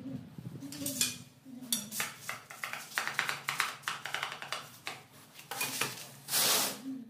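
Ceramic tile pieces clinking, tapping and scraping as a skirting tile is handled and set against a wall, in a run of short hard clicks, with a longer scraping noise about six seconds in.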